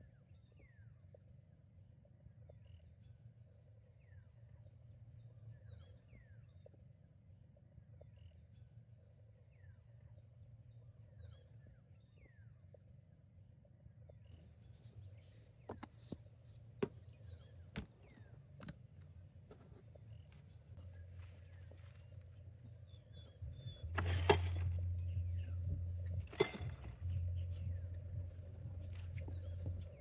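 Steady chorus of insects trilling throughout. In the second half come scattered light clicks and knocks from food containers and a cooler being handled, with a few sharper knocks and a low hum near the end.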